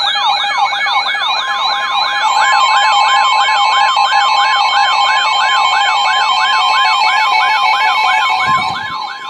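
Electronic emergency alert siren: a tone sweeping down in pitch, repeated about three to four times a second. About a second or two in, a steady alert tone joins it. The sweeping stops just before the end, while the steady tone carries on.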